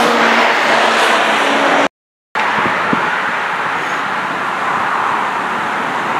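Car driving past on the road, a loud steady tyre-and-engine noise, followed by steady road traffic noise. The sound drops out completely for a moment about two seconds in.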